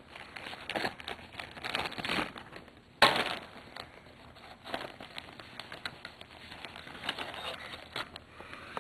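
Clear plastic bags crinkling and rustling as hands rummage through them to pull out a pinball playfield plastic, with a sudden louder crackle about three seconds in.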